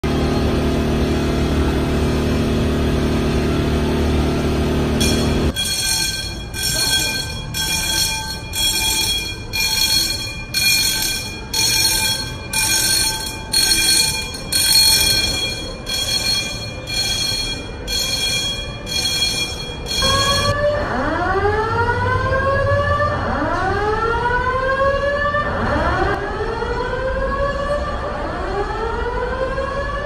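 Building fire alarm sounding. First a steady low horn tone, then from about five seconds in a pulsing alarm of high beeps about once a second, and from about twenty seconds in rising whoop sweeps repeating every second or two.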